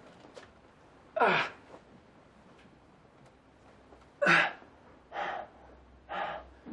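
A person's short gasps and vocal exclamations without words, four in all, the first sliding down in pitch, over a quiet background.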